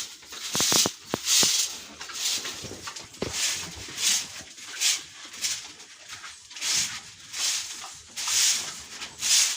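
A stiff broom sweeping sawdust across a pig pen floor, a steady run of brisk hissing strokes with a few light knocks in the first second or so. The sweeping spreads the sawdust to dry the floor.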